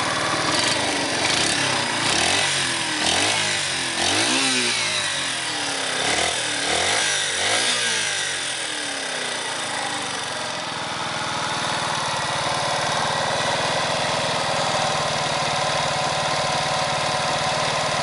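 Yamaha SR125's single-cylinder four-stroke engine running on the stand. The throttle is blipped repeatedly, the revs rising and falling about half a dozen times, for roughly the first nine seconds. It then settles into a steady idle.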